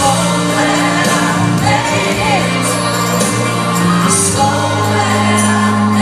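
Live gospel music: a band holding sustained low chords under singing voices that slide between notes.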